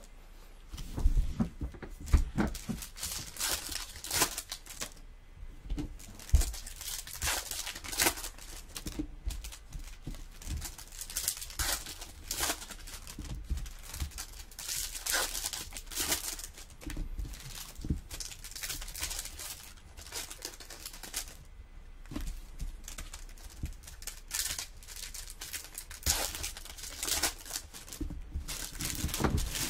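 Plastic wrapping and trading-card pack wrappers crinkling and tearing in irregular bursts as packs are torn open by hand.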